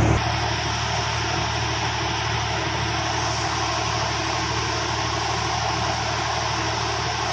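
Mobile flash butt welding plant's power unit running steadily, an even engine-like drone. A louder low hum drops away just after the start.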